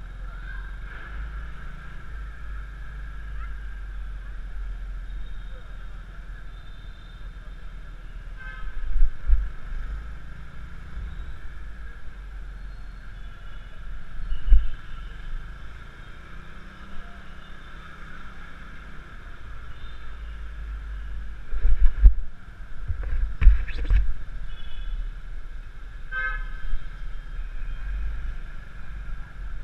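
Motor scooter riding through city traffic: a steady low rumble of the ride with several loud thumps, and a horn beeping in short quick pulses about eight seconds in and again near the end.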